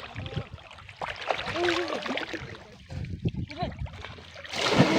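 Water sloshing and splashing in shallow water during spear fishing, with distant voices calling, and a loud splash near the end.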